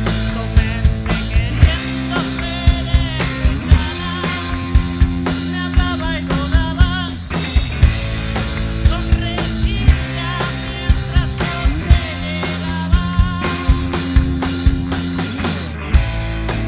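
Rock band playing loud and steady, with a drum kit beating out a regular rhythm.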